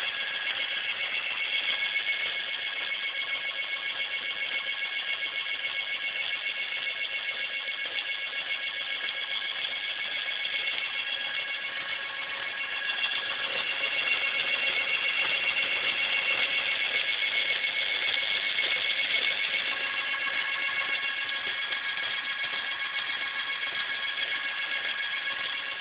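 Electric bicycle conversion motor (Cyclone kit) running, a steady high-pitched whine made of several tones. It gets louder and shifts in pitch from about 13 to 19 seconds in, as the power is raised.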